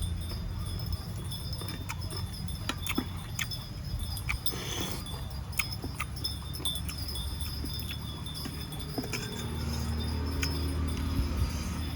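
Close-miked eating: irregular crisp clicks and crunches of chewing, over a low hum, with a high steady ringing tone that comes and goes in the background.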